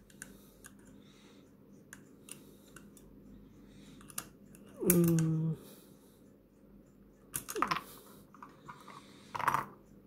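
Plastic keycaps clicking and knocking as they are pulled off a mechanical macropad's switches with a wire keycap puller and handled. Scattered light clicks throughout, with one short, louder pitched sound about halfway through.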